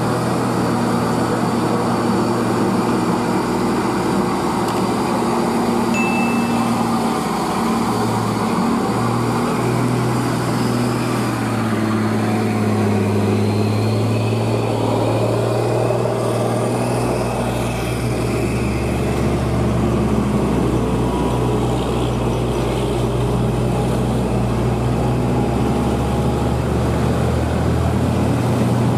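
Diesel engine of an old Nissan truck labouring up a steep climb under load, with other traffic engines mixed in. A deeper engine note joins about halfway through.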